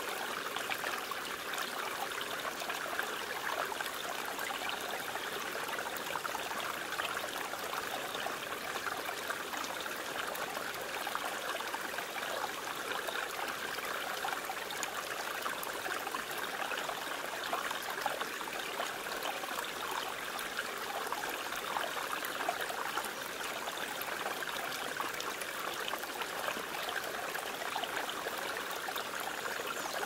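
Small mountain stream trickling and splashing over a low cascade between rocks, a steady, even flow of water.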